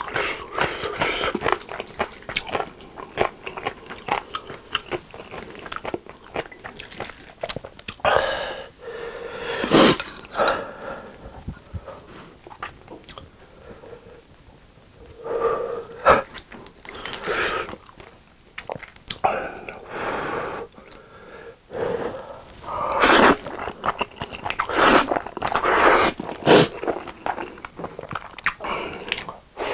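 Close-miked eating of carbonara Buldak stir-fried instant noodles: wet chewing, lip smacks and slurps in irregular bursts, with a quieter pause around the middle.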